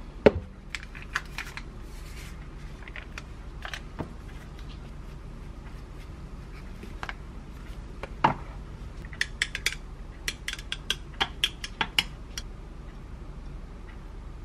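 A spoon clinking against a tall drinking glass as powdered kombucha is mixed into water: scattered light taps, then a quick run of clinks toward the end, over a steady low hum.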